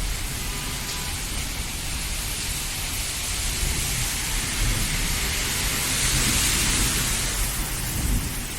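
Steady monsoon rain falling. Its hiss swells louder a little after the middle and eases near the end, over a constant low rumble.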